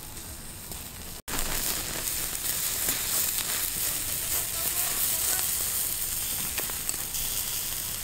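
Whole chicken roasting on a spit over a wood-ember fire: fat sizzling on the hot, freshly scored meat, with small crackles from the embers. The hiss stops for an instant about a second in and comes back louder.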